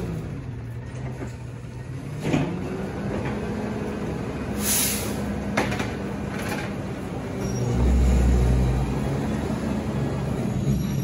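Rear-loader garbage truck's engine running while the hydraulic packer cycles the hopper, the engine dipping and then picking up speed. A metallic knock comes about two seconds in, a short hiss of air near the middle, another knock soon after, and a louder deep rumble about eight seconds in.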